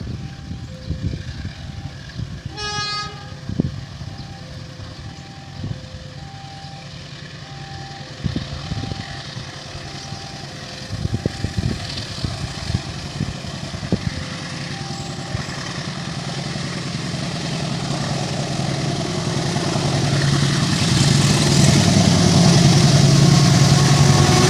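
Level-crossing warning alarm sounding two alternating tones over and over, with one short horn toot about three seconds in. A KAI CC206 diesel-electric locomotive then approaches, its engine and rumble growing steadily louder over the last several seconds.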